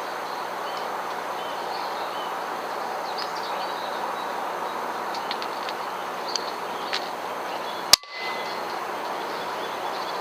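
A single sharp crack of a sub-12 ft·lb FX Impact MK2 PCP air rifle firing, about eight seconds in, over a steady hiss of outdoor background.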